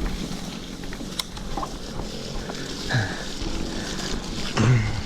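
Mountain bike riding down a dirt trail: steady tyre and rolling noise with the drivetrain and frame rattling and clicking over bumps.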